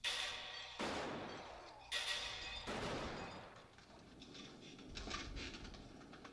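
Four handgun shots in quick succession, each a sharp report that fades away, about a second apart: a film soundtrack's gunfire heard through a podcast.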